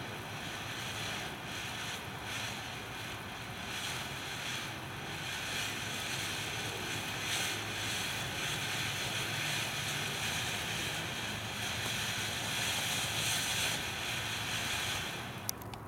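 TNT Fireworks Cockatoo ground fountain burning, giving off a steady hiss as it sprays sparks. A few sharp cracks come right at the end.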